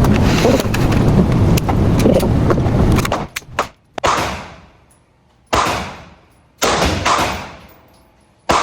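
A loud steady rumble cuts off about three seconds in. Then come gunshots at a shooting range: about five, roughly a second or more apart, each ringing out in a long echo.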